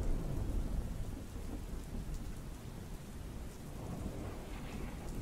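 Thunder rumbling over steady rain. The deep rumble starts suddenly and is loudest in the first second, then slowly dies away under the hiss of the rain.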